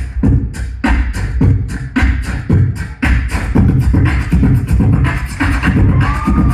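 Beatboxing into a hand-held microphone over a PA: a fast, even beat of vocal kick-drum and snare hits, about four a second.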